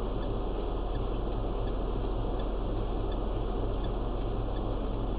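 Steady road and engine noise heard inside a car, with faint regular ticking about twice a second.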